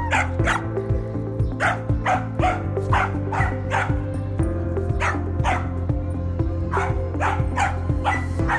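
A corgi barks and yips over and over, about two sharp barks a second, objecting to the hover shoes the boy is riding. Background music plays underneath.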